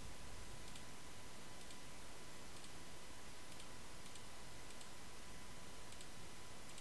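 Computer mouse clicking: about eight light, high-pitched clicks, roughly one a second, each a quick double tick of press and release, over a steady low hiss with a faint steady tone.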